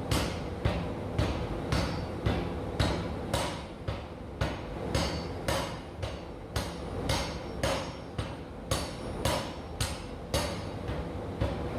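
Massey power hammer striking hot steel in a steady rhythm of about two blows a second, over the machine's steady low hum. This is the draw-down of a forged eye bolt's round stalk.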